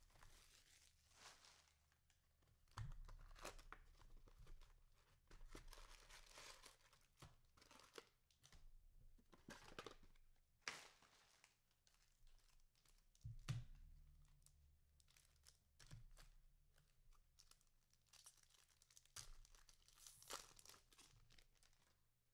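Faint tearing and crinkling of trading-card box and pack wrapping being ripped open, with scattered light clicks and taps of cards being handled.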